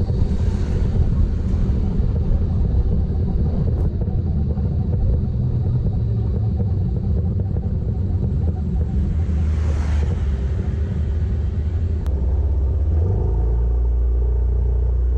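Motorcycle riding: a steady low rumble of engine and wind buffeting the microphone, with a whoosh that swells and fades about ten seconds in. The rumble turns to a steadier low hum near the end.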